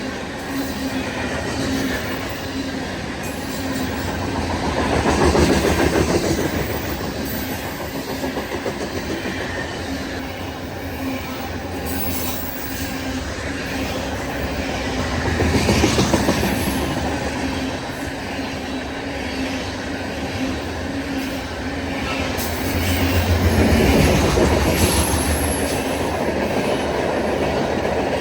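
Loaded grain hopper cars of a freight train rolling past, wheels clacking over the rail joints, with a steady low hum underneath. The sound swells louder three times as groups of wheels go by.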